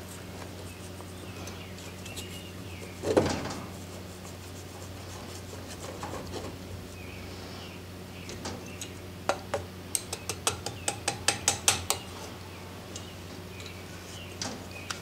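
Sand mold being broken open with pliers to free a lead casting: a single knock about three seconds in, then a quick run of light metallic clinks, about five a second, from roughly nine to twelve seconds as the pliers and the casting knock against the steel flask. A steady low hum runs underneath.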